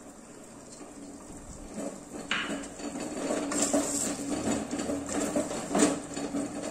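A wooden spatula stirs thick vegetable curry in an enamel pot, with wet stirring and scraping, growing louder after about two seconds. The spatula knocks against the pot a few times.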